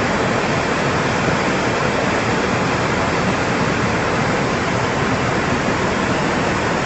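Floodwater rushing past in a steady, loud, unbroken torrent.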